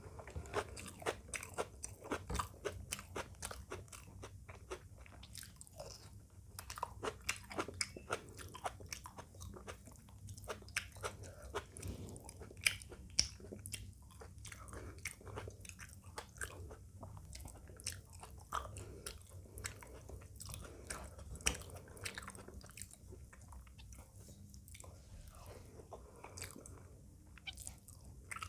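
Close-up eating sounds: a person chewing and crunching through a meal of chicken curry, rice and raw salad, with many irregular sharp crunches and bites.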